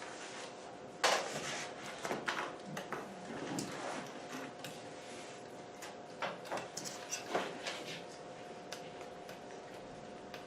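Irregular short scrapes and taps of a marker drawing line strokes of an octagon on a classroom board, grouped in several bursts, over a steady faint electrical hum.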